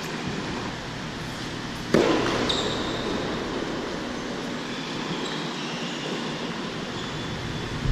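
One sharp tennis ball impact about two seconds in, ringing on in a large indoor tennis hall, over steady background noise; a lighter knock comes at the very end.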